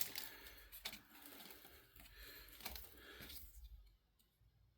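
Faint rustling and light clicks of trading cards being handled, starting with a sharp click; it cuts to silence about a second before the end.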